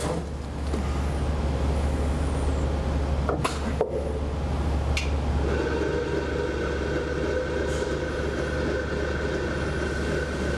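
Wilson Tool XSharp punch grinder running a grind cycle: a steady low motor hum with a couple of clicks, then from about halfway a steady high whine as the wheel grinds the punch under coolant spray.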